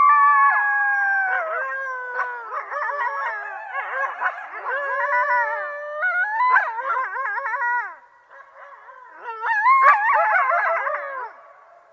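A group of coyotes howling together, several long howls overlapping and breaking into quavering, warbling yips. The chorus drops away about eight seconds in, then rises again briefly and trails off near the end.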